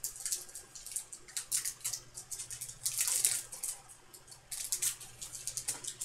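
Foil wrapper of a hockey card pack being torn open and crinkled by hand, with irregular crackling and a short lull partway through.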